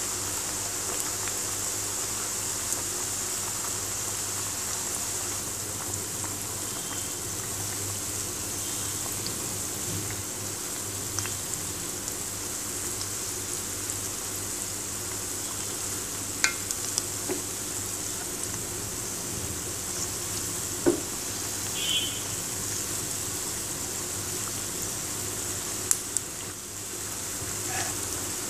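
Potato-and-noodle fingers deep-frying in a wok of hot oil: a steady sizzle of bubbling oil, with a few sharp clicks as a spatula turns them.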